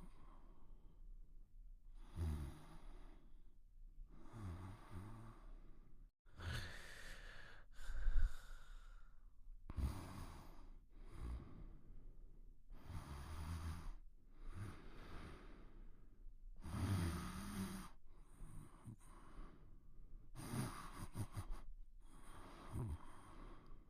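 Quiet snoring: slow, regular breaths in and out, about one every two seconds. One longer breath, around seven to nine seconds in, carries a falling whistle, and the sound drops out briefly about six seconds in.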